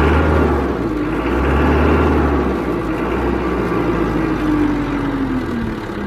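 Mitsubishi S4S four-cylinder diesel engine running, swelling louder twice and then settling lower. It now starts and runs normally, its hard-starting fault cured by new glow plugs and a new fuel filter.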